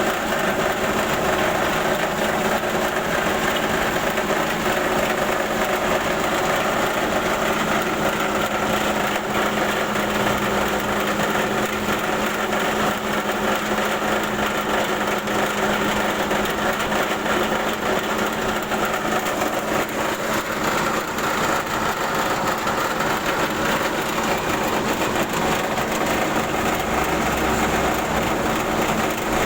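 Rice huller with bran separator running steadily under test, a constant mechanical drone with a steady hum.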